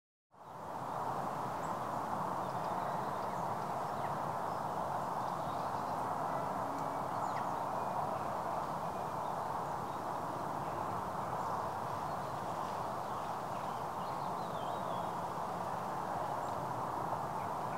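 Evening countryside ambience recording: a steady hiss with faint, scattered bird chirps above it. It fades in at the start.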